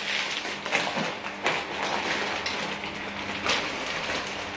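Plastic snack packets crinkling and crackling as they are torn open and handled, with a few sharper crackles, over a faint steady hum.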